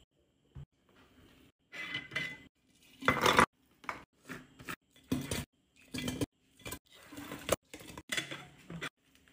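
Candy jars being handled on a table: plastic lids twisted and pulled off and glass and plastic clinking, in a string of short clatters, the loudest a little after three seconds in.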